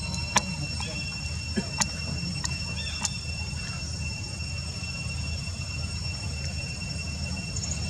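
Forest ambience: a steady high-pitched drone of insects, with a low rumble underneath. A few sharp clicks and snaps come in the first three seconds.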